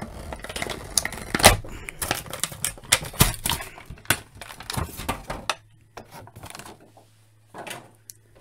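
Stiff clear plastic blister being pried and peeled off a cardboard backing card, making rapid, irregular crackling and clicking. After about five and a half seconds it goes much quieter, leaving a faint low hum, with one short rustle near the end.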